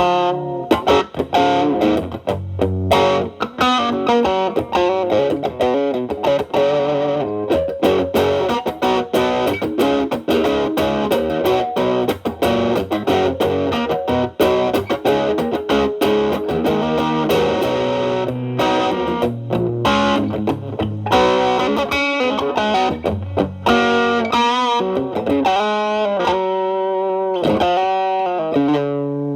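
Distorted electric guitar: a Telecaster with alnico single-coil pickups through an MXR Distortion+ with its distortion at about 10 to 11 o'clock, boosted by a Boss SD-1 overdrive, into a Marshall Valvestate amp's clean channel. It plays quick improvised lead lines, with longer held notes near the end.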